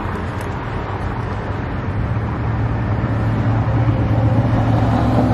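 Fresh motor oil poured from a plastic jug through a funnel into an engine's oil filler neck, over a steady low hum that grows louder about two seconds in.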